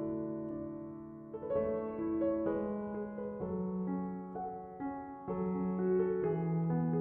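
Background music: soft piano playing slow held chords and notes.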